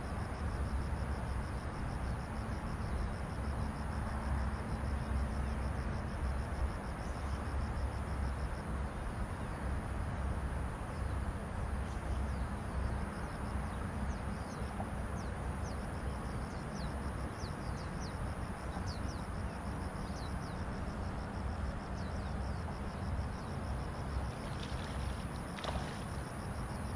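Riverside dawn ambience: a steady low rumble under a high, evenly pulsing insect trill. Short bird chirps come in from about halfway through.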